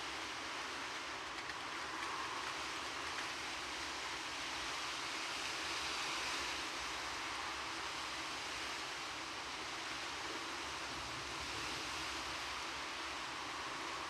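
Steady rain falling as an even, constant hiss, swelling slightly about halfway through, with no thunderclap.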